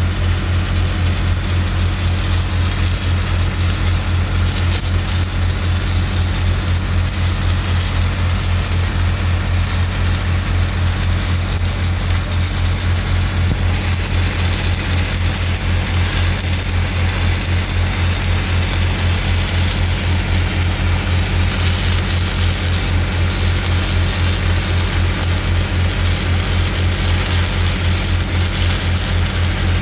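Miller Big Blue 600 engine-driven welder's diesel engine running with a steady, evenly pulsing drone, under the constant crackle and hiss of stick-welding arcs on a 16-inch steel pipe cap.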